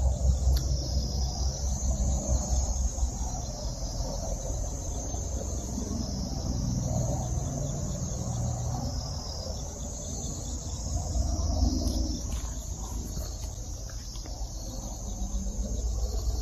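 A chorus of insects shrilling in a high, continuous band that swells and fades about every two seconds, over a low rumble.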